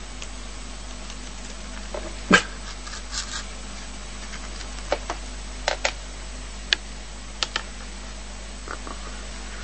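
A dog making a dozen or so short, sharp, scattered sounds, the loudest about two seconds in, over a steady low hum.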